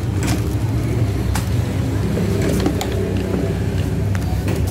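Steady low engine hum from road traffic, with a few short clicks and rustles of plastic sprayer parts and their bag being handled.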